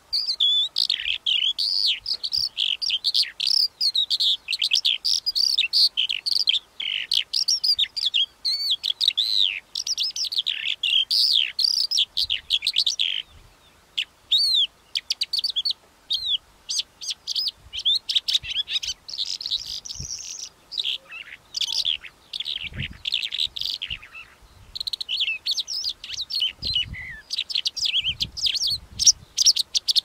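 Calandra lark singing: a fast, unbroken stream of high chirps, trills and warbling notes, with a short pause about halfway.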